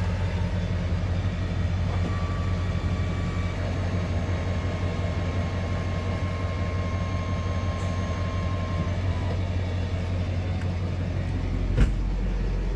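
Pickup truck engine idling with a steady low hum, the truck hitched to a fifth-wheel RV, with a single short knock near the end.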